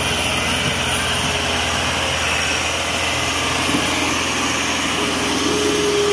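Massey Ferguson 385 tractor's diesel engine running steadily under load, hauling a heavily loaded sugarcane trolley. A steady whine joins in about five seconds in.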